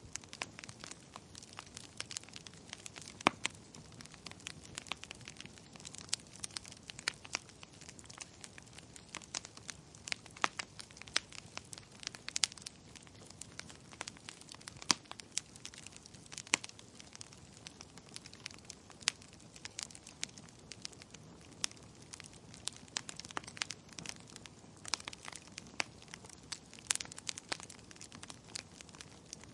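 Burning wood logs crackling, with irregular sharp pops and snaps, several a second and some louder than the rest, over a faint steady hiss.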